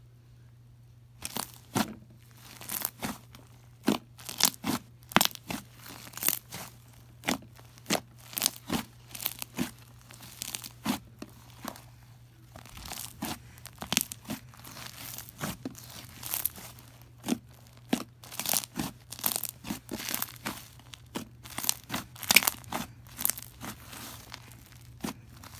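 Thick, fluffy puff slime being stretched, pulled apart and pressed by hand, giving short crackling, tearing sounds in irregular clusters. They start about a second in.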